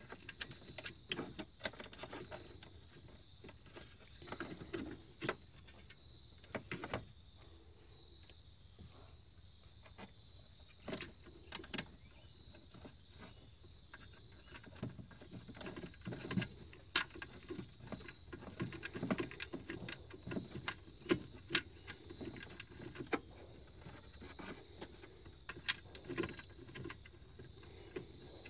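Hands handling wiring harness connectors and cables at a plastic engine-bay fuse block: scattered small clicks, taps and rattles, busier in the second half, over a faint steady high tone.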